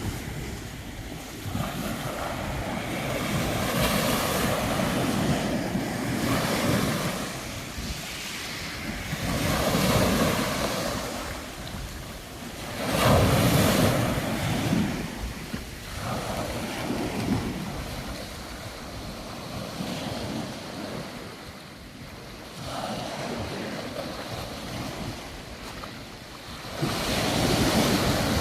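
Sea waves breaking and washing in, swelling in surges every few seconds, with wind rumbling on the microphone.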